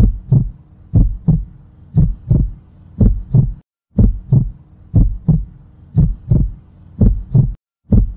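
Heartbeat, a slow steady lub-dub about once a second, each beat a heavy low thump followed quickly by a second one. It drops out briefly twice, about three and a half seconds in and near the end.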